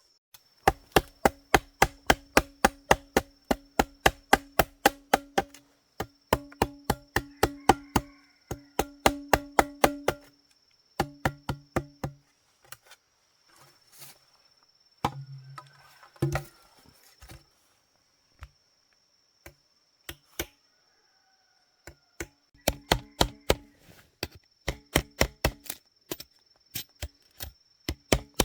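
Rapid chopping strikes on wood, about four or five blows a second, in runs of several seconds with short pauses and a quieter stretch midway. A steady high insect drone sits underneath.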